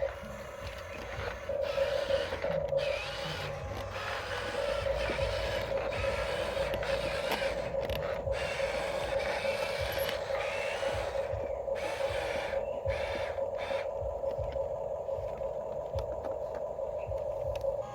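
Radio-controlled toy construction vehicle running, with a steady electric motor and gear whine under irregular scraping and clicking.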